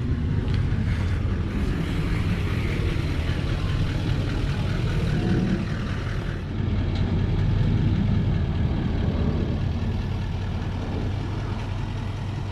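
Tow vehicle's engine running with a steady low rumble while it pulls a hooked-up trailer away.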